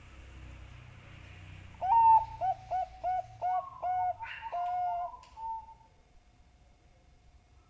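Bangkok-type perkutut (zebra dove) singing its cooing song about two seconds in: a rising opening note, a quick run of short coos, and a longer held closing note.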